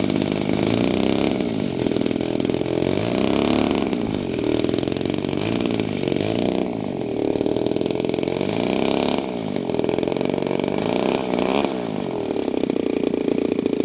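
DLE-20, a 20 cc single-cylinder two-stroke gasoline engine on an RC P-51B Mustang model, swinging a propeller at idle. It is revved up and down several times, then cuts off right at the end.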